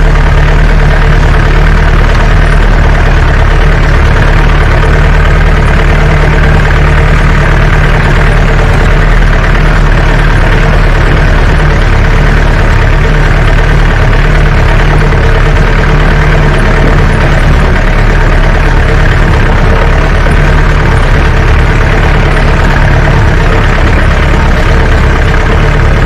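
Jeep engine running steadily under load, loud throughout, as the jeep climbs a rough, rocky mountain track in four-wheel drive.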